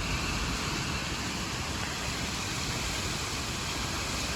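Heavy thunderstorm downpour: rain pouring down as a steady, even hiss.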